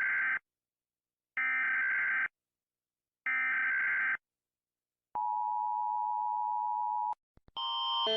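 Emergency Alert System tones: three short bursts of digital header data, about a second each and two seconds apart, then a steady two-tone attention signal for about two seconds. Two clicks follow, and a louder alarm of several tones starts and keeps rising near the end.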